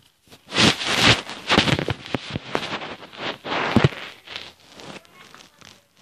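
A sheet of paper rustling and crinkling close to the microphone as it is handled and folded by hand: a run of sharp, crackly rustles that fades out after about four seconds.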